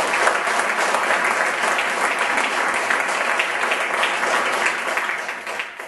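Audience applauding: many people clapping at once in a dense, steady patter that thins out near the end.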